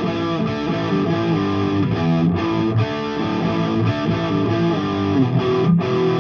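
Electric guitar with a humbucker, driven through a Crews Maniac Sound Genius overdrive pedal into a simulated Bogner 4x12 cabinet with Celestion G12M25 speakers, playing a looped riff through studio monitor speakers. The riff is a run of changing notes and held chords, broken by a few brief stops.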